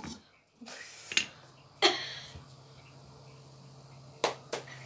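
A few sharp clicks and taps, the loudest about two seconds in with a brief hiss after it, and two more close together near the end.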